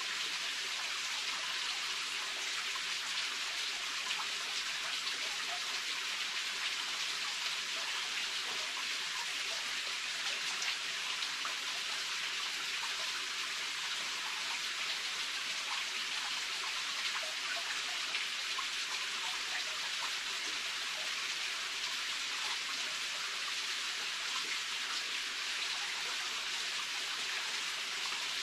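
Steady, even rush of water with a fine patter of small drops.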